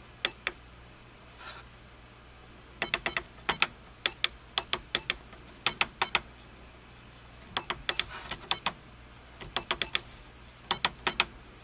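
Small push buttons on the Microtronic Next Generation board's keypad clicking as they are pressed, in quick runs of a few clicks separated by short pauses.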